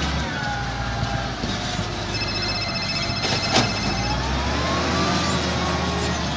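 XCMG LW300KN wheel loader's diesel engine running as the machine drives with an empty bucket, engine pitch rising and falling. A rapidly pulsing high beep sounds for about two seconds midway, and a single sharp knock comes about three and a half seconds in.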